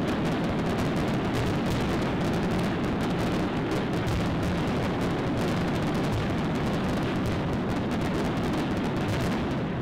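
Aerial firework shells bursting in a dense, continuous barrage, the bangs overlapping into one unbroken din with crackling on top.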